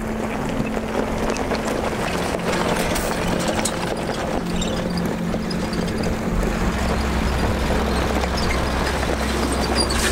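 An off-road SUV driving slowly over rough ground through dry grass: the engine runs low and steady under a constant crackling and crunching from the tyres, with the low engine note growing stronger about halfway through.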